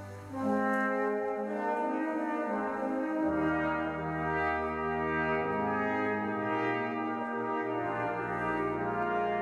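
Brass ensemble playing sustained chords. A new phrase begins about half a second in, and low bass notes join about three seconds in.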